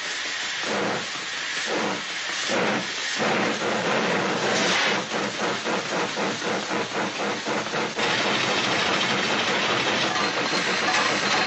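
Studio sound effect of a steam locomotive: hissing puffs, slow and spaced at first, speeding up about three seconds in to a fast chugging rhythm that runs into a dense, steady hiss.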